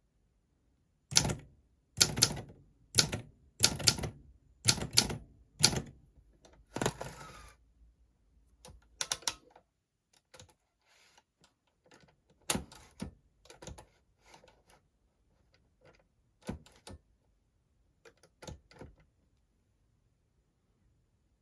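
Olympia SM4 manual portable typewriter worked by hand: loud single key strikes about once a second, a longer rasping stretch about seven seconds in, then lighter scattered clicks that stop about nineteen seconds in.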